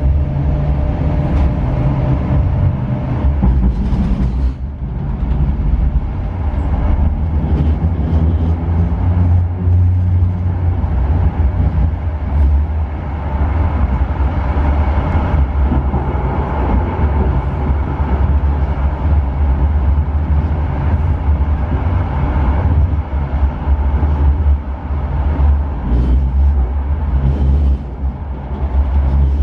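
Steady low rumble of a running road vehicle's engine.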